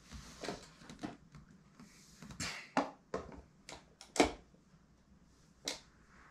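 Small toy blocks set down and moved about in a toy pan by hand: a series of light clicks and knocks, the loudest one just after four seconds in.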